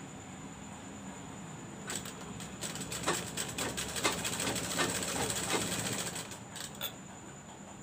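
Domestic sewing machine stitching fabric: a fast run of needle clicks from about two seconds in until near the end, over a steady low hum.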